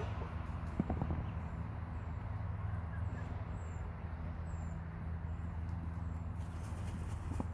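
Hens dust bathing in dry dirt: scattered scuffs and a few short knocks, about a second in and again near the end, over a steady low rumble.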